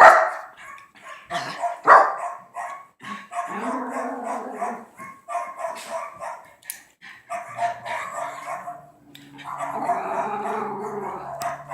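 Dogs barking repeatedly, with longer held howling calls in between. The loudest barks come at the start and about two seconds in.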